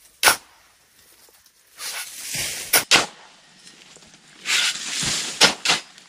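Shovels digging into wet, muddy soil: two scraping strokes, each followed by sharp knocks of the blades.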